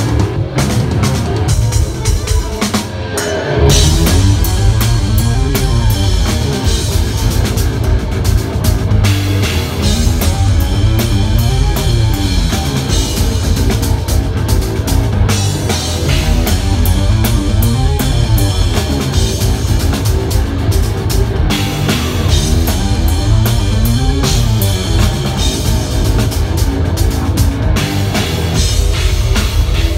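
Progressive metal band playing live: a heavy drum kit, distorted guitar and bass, with repeating rising-and-falling runs. The full band comes in louder about three and a half seconds in.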